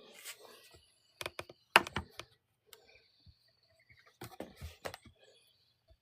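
Close clicks, taps and light rustling from objects being handled, in two short flurries: one peaking about two seconds in, the other a little past four seconds.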